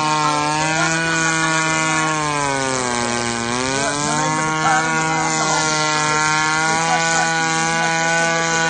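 Engine running steadily with a strong pitched drone; its pitch sags about three seconds in and climbs back a second later.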